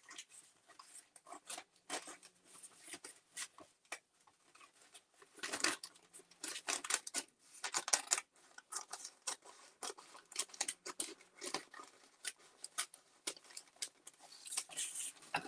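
Scissors cutting paper: a run of short, irregular snips, some in quick clusters.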